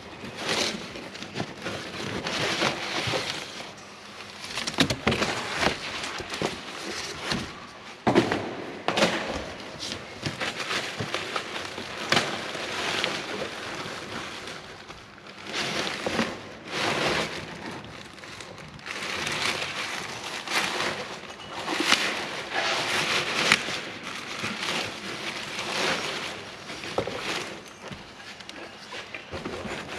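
Cardboard box and its paper and plastic packing being pulled open and rummaged through: irregular crackling and rustling with scattered sharp clicks.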